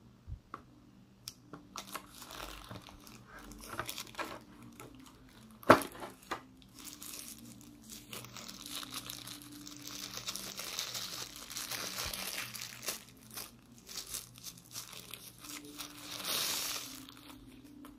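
Thin plastic protective bag crinkling and rustling as it is handled and opened, with scattered clicks and one sharp tap about six seconds in. The crinkling is densest through the middle and again near the end.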